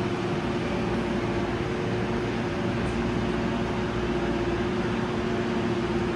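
Hankyu 9300 series electric train standing at the platform, giving off a steady hum with a constant low tone.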